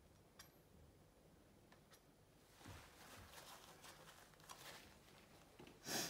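Mostly quiet handling sounds: a few faint clicks, then soft rustling of hands and tissue over the paper. Near the end comes a short, louder rustle as the sheet of paper is grabbed to be turned.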